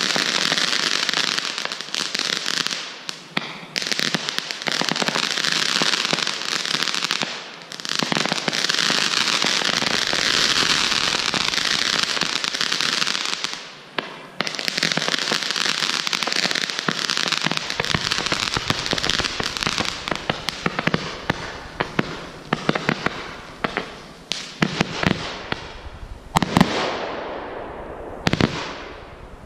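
A small consumer firework battery (cake) firing shot after shot with a dense, continuous hissing crackle. A few brief lulls break it up. Near the end it thins out into separate sharp cracks and pops.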